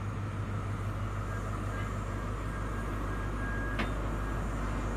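HST power car's diesel engine running with a steady low drone, a faint thin whine over it for a couple of seconds. A single short click near the end.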